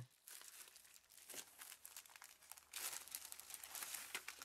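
Faint crinkling and rustling of a clear plastic sleeve and paper being handled, louder from about three seconds in.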